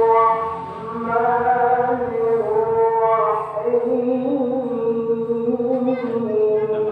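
A single voice chanting in long held notes that drift slowly up and down in pitch, with short breaks between phrases.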